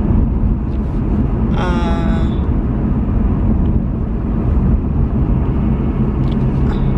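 Steady low rumble inside a car's cabin with the engine running. About a second and a half in comes a brief pitched hum, under a second long.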